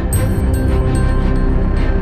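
Background music with sustained low tones and a regular beat. High chiming tones come in just after the start.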